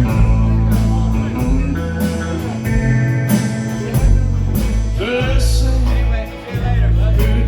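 A live band playing country-style music between sung lines: heavy bass, guitar and drums with regular cymbal hits, with a short drop in loudness a little past six seconds.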